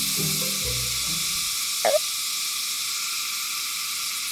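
Asian giant toad (Phrynoidis asper) giving one short, bark-like call about two seconds in, over a steady high hiss.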